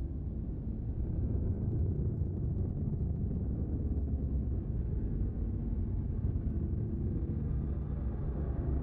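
A steady low rumbling drone with faint held tones over it, growing a little louder about a second in.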